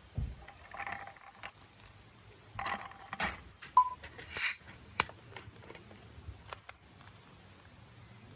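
Things being handled by hand: scattered clicks, scrapes and light knocks, with a brief ping and a short rushing hiss about four seconds in.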